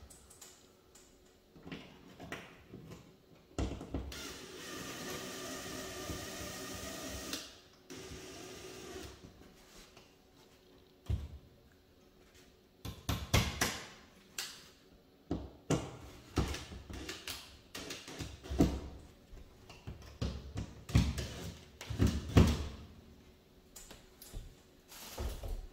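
DeWalt cordless drill-driver running for about three seconds as it drives a screw through a metal bracket into a wall anchor, followed by a weaker spell of driving. After that come a series of irregular knocks and clicks as the bracket and screws are handled.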